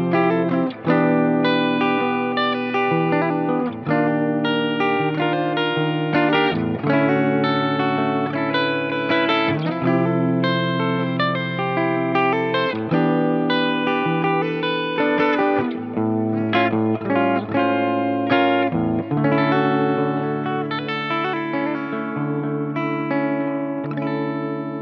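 Epiphone Riviera semi-hollow electric guitar playing sustained chords that change every couple of seconds, through an amp-sim tone with delay and reverb. The last chord rings out and fades near the end.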